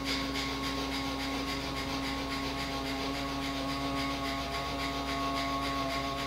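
Rapid fire breath (breath of fire): quick, forceful exhalations through the nose in a fast, even rhythm, over steady background tones.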